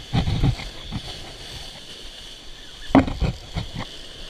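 Surf breaking and sloshing against jetty rocks, with two bursts of heavy thuds and splashes, one at the start and one about three seconds in.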